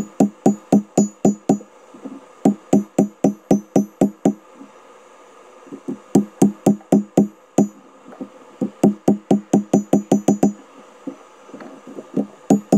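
Hand hammer striking glowing steel on an anvil to set a forge weld: quick runs of sharp ringing blows, about five a second, broken by short pauses. A steady hiss from the lit propane forge runs underneath.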